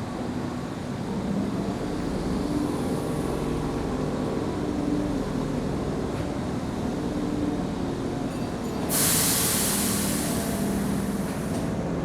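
Keihan electric train running at the station platform, with a steady low rumble and shifting motor tones. About nine seconds in comes a sudden loud hiss of compressed air, lasting a couple of seconds.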